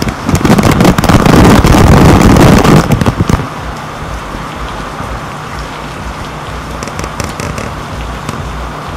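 Tropical-storm wind gusting hard against the microphone, with rain crackling on the waterproof camera housing. It is loud and rough for about three and a half seconds, then eases to a steadier rush of wind and rain.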